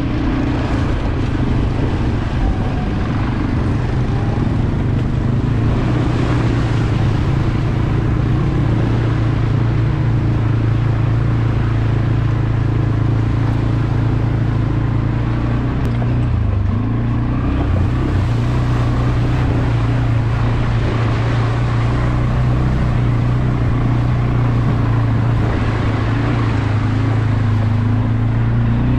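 CFmoto CForce 520 ATV's single-cylinder engine running steadily while the quad is ridden, with a brief dip in revs a little past halfway.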